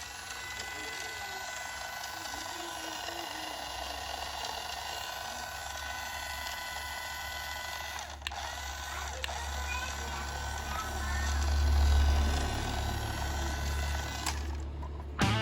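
Remote-control toy fire rescue truck running: a steady whir from its small electric motor and gears, with a low rumble that grows louder about twelve seconds in.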